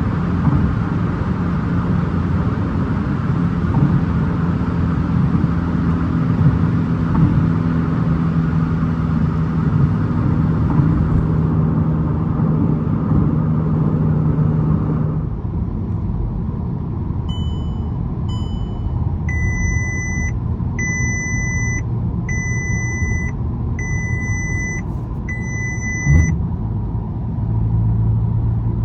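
Golf 8 GTI's 2.0-litre turbocharged four-cylinder running at a steady speed with road noise, easing off about halfway through. Then an electronic chime beeps twice, followed by five evenly spaced beeps about a second apart, and a single thump comes near the end.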